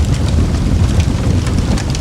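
Campfire burning: a steady low rumble of the flames with several sharp crackles and pops from the burning wood.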